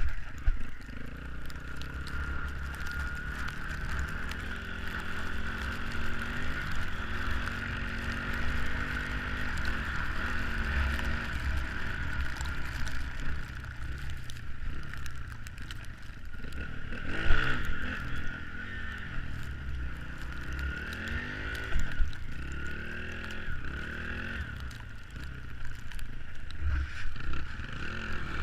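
Small off-road vehicle engine running and revving up and down again and again, over a steady low rumble, with one sharp knock a little past halfway.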